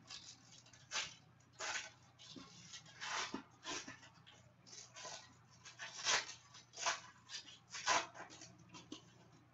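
Trading-card pack wrapper being torn open and crinkled, with the cards rustling, in a string of short irregular rustles.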